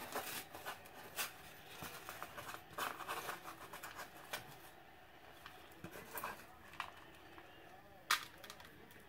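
Faint kitchen handling sounds: fingers scraping minced parsley out of a small bowl into a bowl of butter, with scattered light taps and one sharper click about eight seconds in.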